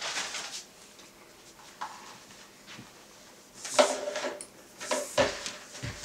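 A plastic plate set down on a hard tabletop with a sharp knock a little past halfway. Then a plastic water bottle is put down on the table with a few knocks and dull thumps near the end.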